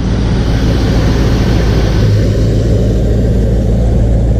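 Freshly rebuilt 4.0-litre petrol V8 of a Land Rover Defender running steadily and evenly, with new camshaft and lifters still breaking in. A slight swell in the low engine note about halfway through.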